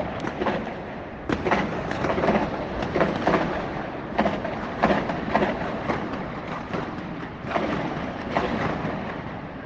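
A rapid, irregular run of detonations, about a dozen in under ten seconds, each trailing a long rolling echo.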